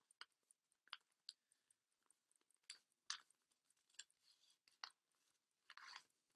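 Faint crinkling and rustling of origami paper being rolled and pinched into a diagonal crease: a scatter of short crackles, with a longer rustle near the end.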